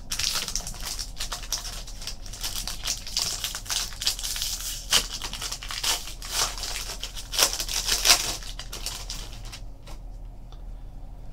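Foil trading-card pack wrapper crinkling and crackling as it is opened and crumpled in the hands, with cards handled; the crinkling dies down about nine and a half seconds in.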